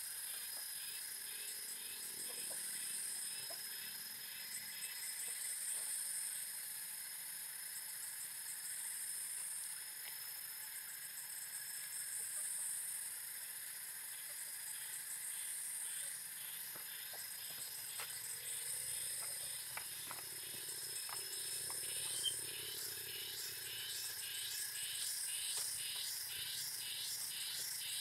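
Chorus of insects calling, with a steady high trill and rhythmic pulsing chirps that keep repeating. One sharp tap about 22 seconds in.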